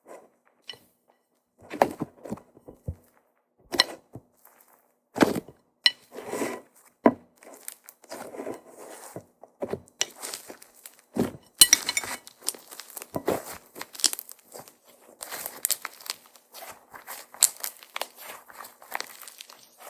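Soufflé-pancake-style slime being squeezed and poked by hand: irregular squishes, crackles and small pops, sparse at first and coming thick and fast from about halfway in.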